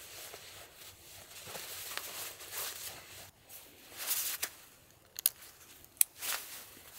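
Irregular rustling and scuffing, with two sharp clicks about five and six seconds in.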